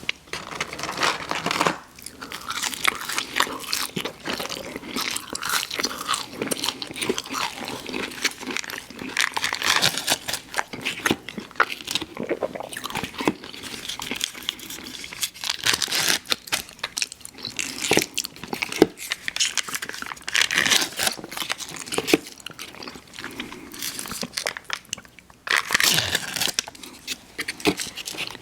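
Close-miked eating: biting and chewing fast food, a dense run of irregular crunches and mouth clicks, with a short lull about three quarters of the way through.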